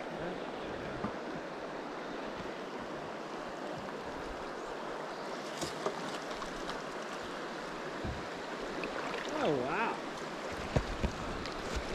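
Steady noise of a river's current running, with no break. About nine seconds in, a short call dips and then rises in pitch over it, and a few light clicks follow near the end.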